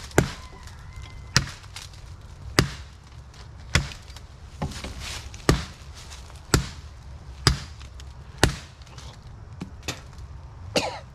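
An axe chopping into a small standing tree trunk: about ten blows roughly a second apart, a few of them lighter than the rest.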